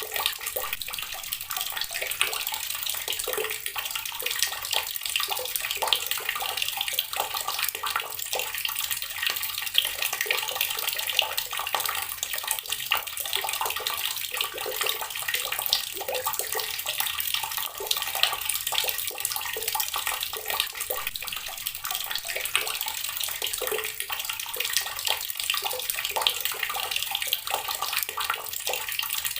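Water pouring steadily from a running tap, splashing continuously with a dense crackle of droplets.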